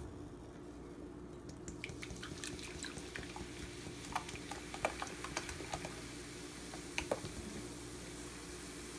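Cherry Coca-Cola pouring from a plastic bottle into a glass bowl, starting about a second and a half in: a steady splashing, fizzing hiss with many small ticks of bursting bubbles.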